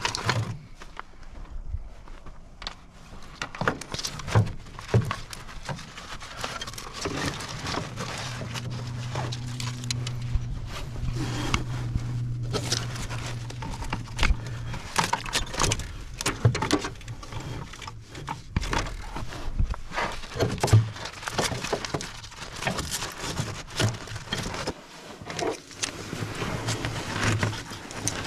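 Metal parts and hand tools clinking, knocking and rattling in irregular bursts while a stop-motor bracket and cable are fitted on a diesel engine. A low steady hum runs for about six seconds in the middle.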